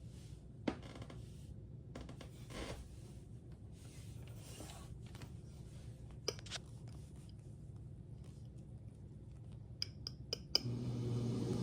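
Faint low hum with a few scattered clicks and light scraping; about ten seconds in, a quick run of clicks, then the Lasko portable heat pump starts up and its steady running sound rises.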